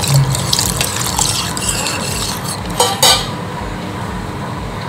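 Metal ladle stirring lentil sambar in a pressure cooker as water is poured in to thin it, the ladle scraping and knocking against the pot's sides. A cluster of sharp knocks comes about three seconds in.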